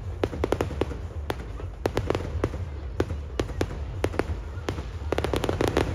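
Aerial fireworks bursting at close range: a quick, irregular run of sharp cracks and pops from crackling stars, growing into a dense crackle near the end.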